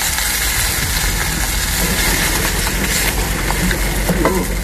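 Steady roar of a gas burner under a wok of seafood, with a few light knocks near the end.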